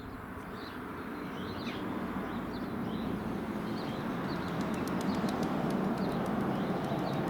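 Distant drone of a Boeing E-3A Sentry's four turbofan engines passing high overhead, slowly growing louder, with small birds chirping now and then.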